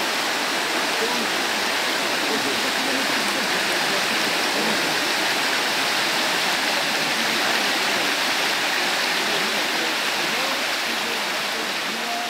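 Fast-flowing river rushing and churning over shallow rapids, a steady rushing of water.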